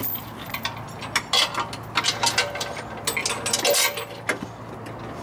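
Irregular metallic clicks and clinks of tow-dolly chains and hooks being handled under the front of a car.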